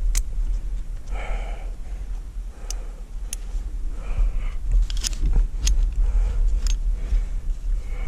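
Wind rumbling on the microphone, with about six sharp metallic clicks of climbing gear on the rope and a couple of brief rustles.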